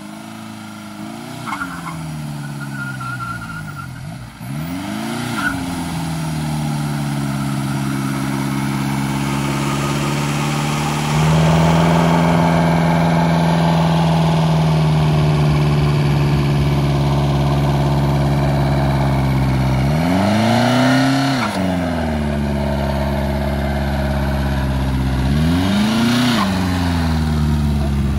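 Volkswagen Jetta 1.9 TDI four-cylinder diesel revved hard for a burnout, its front tyres spinning on plywood. The revs rise and fall twice, are held high and steady for about ten seconds, then drop and climb again twice near the end.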